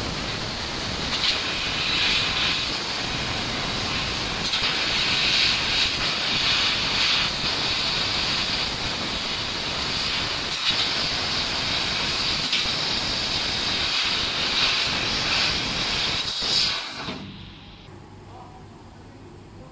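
Laser cutter's Raytools cutting head cutting 2 mm stainless steel sheet: a loud, steady hiss of the assist-gas jet through the nozzle, with brief surges. It cuts off abruptly about 17 seconds in, leaving faint room noise.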